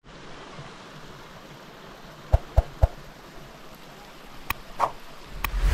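Steady outdoor hiss with three quick, sharp knocks about halfway through and two more a couple of seconds later, then a low rumble near the end.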